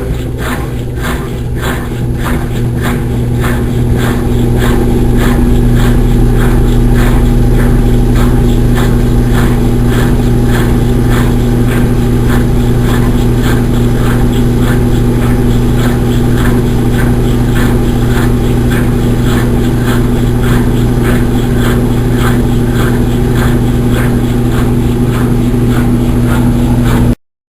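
Consul Maré Super 10 kg washing machine running: a steady motor hum with a regular swishing pulse about twice a second. It builds in loudness over the first several seconds, then holds, and cuts off abruptly near the end.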